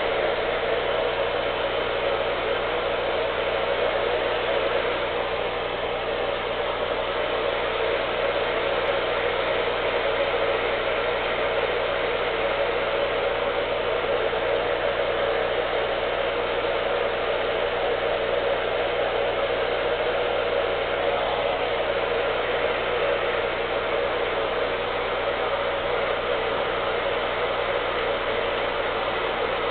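Steady whirring hiss of a small electric blower motor, even in level with no breaks.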